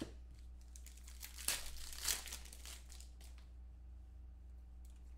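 Crinkling and tearing of a trading-card pack's wrapper as it is ripped open and crumpled by hand, a quick flurry of rustles loudest about one and a half to two and a half seconds in, then a few fainter crinkles.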